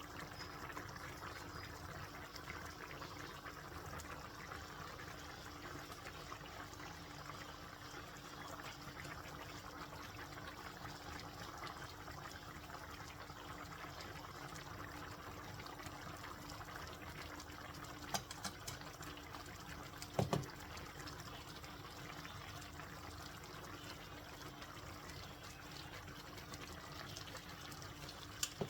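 Steady noise of water, either running or bubbling, over a constant low hum, with a few short clicks about two-thirds of the way in.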